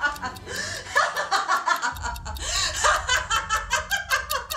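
A woman laughing in quick, repeated bursts.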